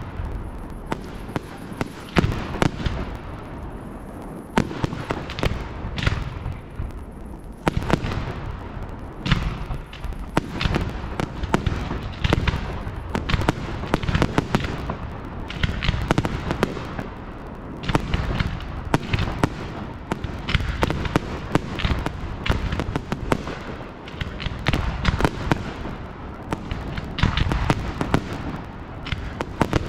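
Fireworks display: a dense, continuous run of bangs and crackling pops from bursting shells, one after another.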